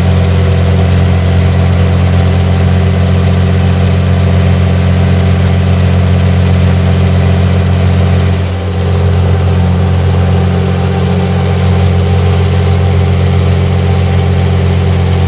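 The 27-litre Rolls-Royce Meteor V12 petrol engine of a Comet A34 tank running steadily, a deep, even drone. Its level dips briefly about halfway through.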